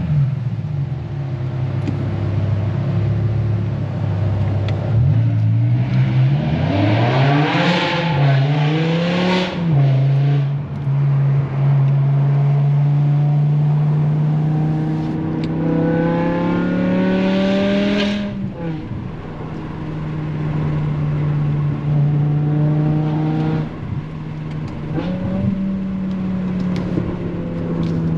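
BMW M5 E61's naturally aspirated S85 5.0-litre V10 accelerating hard through the gears: the engine note climbs and drops at quick shifts, then makes one long climb to a high rev before dropping sharply at an upshift and running on more steadily.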